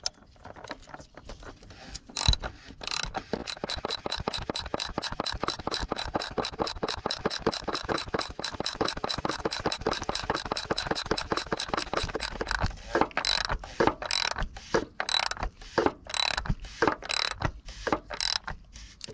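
Ratchet wrench with a 27 mm socket clicking as it screws the oil filter cap up clockwise: a quick, even run of clicks, about six a second, then slower, spaced clicks near the end as the cap tightens.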